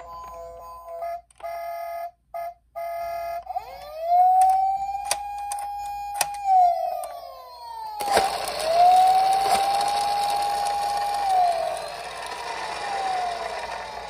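Toy police car's electronic siren sound effect: after a few short beeping tones, a siren tone rises, holds and falls, twice, then slides down again near the end. A hissing noise runs underneath from about halfway.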